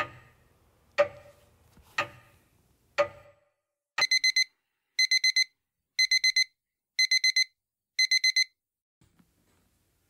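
Clock sound effect: four sharp ticks a second apart, then a digital alarm clock beeping in five bursts of four quick, high beeps, one burst each second.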